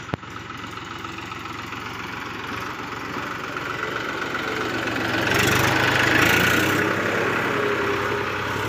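Massey Ferguson 7235 DI tractor's 35 hp three-cylinder diesel engine running steadily as the tractor drives off. It grows louder to a peak a little past the middle, then eases. A short click comes right at the start.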